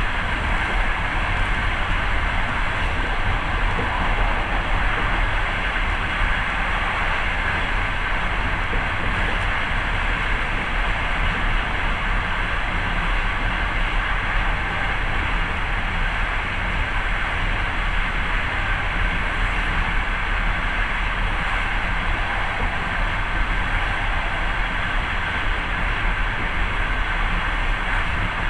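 Passenger train running at speed, heard from inside the carriage: a steady mix of low running noise and wheel-on-rail hiss with no distinct rail-joint clicks.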